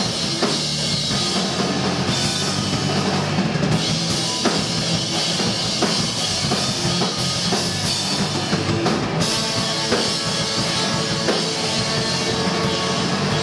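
Live rock band playing: guitar over a steadily pounding drum kit, dense and unbroken.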